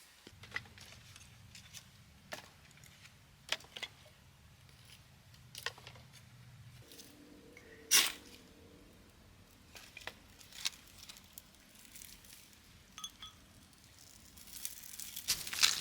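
Small handling noises: scattered light clicks and taps, one sharper click about eight seconds in, and crinkling, rustling noise building near the end.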